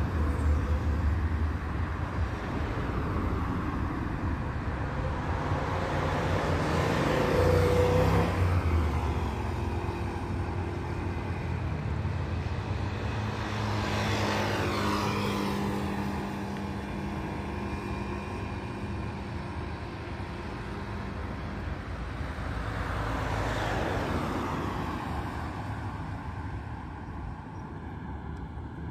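Road traffic: a steady hum of cars, with three louder pass-bys about eight, fifteen and twenty-four seconds in.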